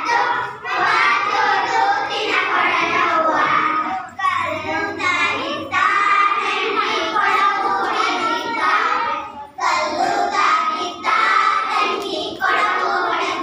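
Children singing a song together, in phrases broken by short pauses.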